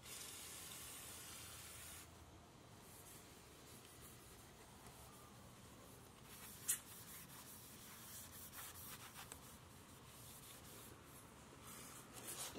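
An aerosol can of brake cleaner hisses for about two seconds as it sprays onto a rag, then the rag rubs faintly over the motorcycle's titanium exhaust pipes as it is wiped down, with a single sharp click about halfway through.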